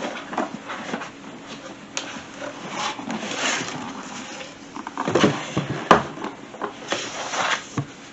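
Handling noises: rustling, with a run of irregular clicks and knocks, the loudest about five and six seconds in.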